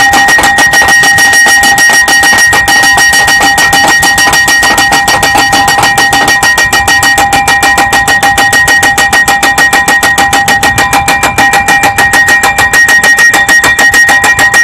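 Hydraulic impact hammer of a photovoltaic pile rig striking a steel pile in a rapid, even train of blows, with the struck metal ringing at a steady pitch.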